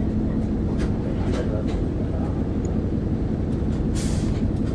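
Interior sound of an Isuzu Erga city bus (2DG-LV290N2, four-cylinder turbo diesel), its engine running low and steady with light rattles and clicks from the cabin. About four seconds in, a short hiss of air comes in.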